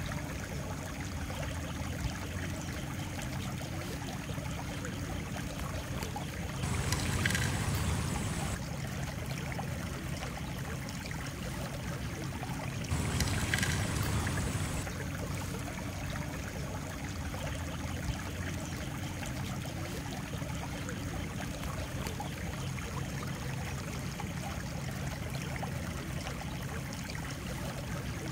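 Steady flowing water of a stream. Two louder swells of noise, each about two seconds long, come about seven and thirteen seconds in.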